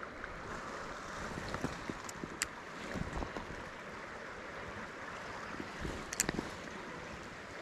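Small creek running: a steady rush of moving water, with a few light clicks about two seconds in and again near six seconds.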